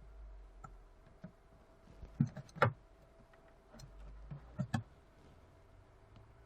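iPhone 6 Plus being tested after repair: sharp clicks of its side buttons being pressed, with two short stretches of low buzzing from the vibration motor.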